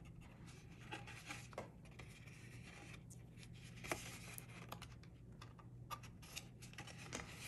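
Faint rustling and rubbing of cardstock as hands handle and press a paper box envelope, with a few light taps and a low steady hum underneath.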